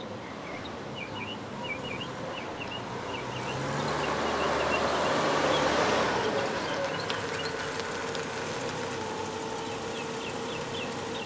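MG Midget convertible's four-cylinder engine drawing near and pulling up, loudest about six seconds in, then idling with a steady hum. Birds chirp throughout.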